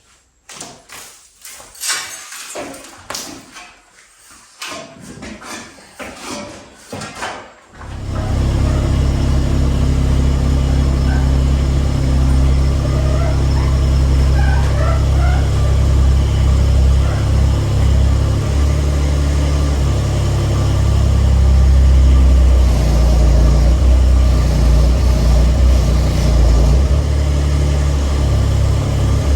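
Irregular knocks and clatter, then about eight seconds in a loud engine comes in suddenly and runs steadily.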